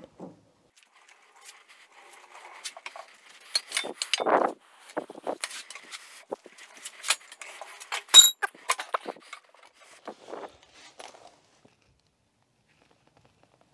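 Scattered metal knocks and clinks as a steel pry bar levers the heavy milling machine's steel base on its casters and machine skates, with one loud clank about eight seconds in that rings briefly.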